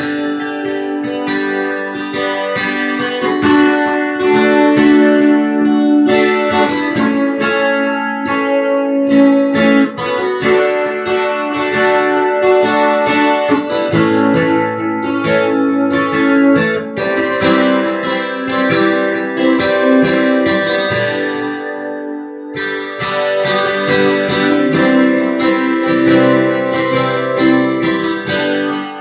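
Taylor twelve-string acoustic guitar strummed and picked through a chord progression, with a short break in the playing about three-quarters of the way through.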